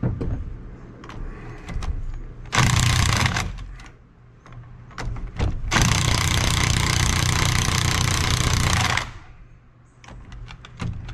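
Cordless impact wrench hammering on the top nut of a shock absorber, in two bursts: a short one about two and a half seconds in and a longer one of about three seconds from about six seconds in. Small clicks and knocks from handling the tool and parts come between them.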